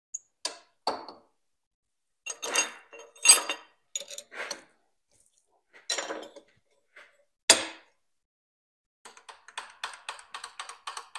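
Steel tooling on a tool and cutter grinder handled by hand: a series of separate metallic clinks and knocks, the sharpest about three and seven and a half seconds in, then a quick run of small rattling ticks in the last two seconds.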